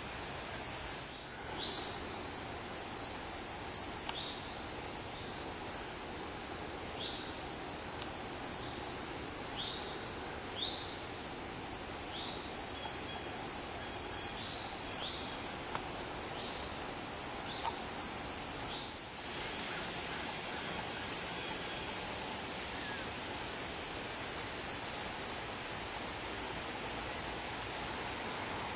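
A continuous high-pitched chorus of insects fills the woods without a break. Through the first two-thirds, short high chirps that fall in pitch come over it about once a second, then stop.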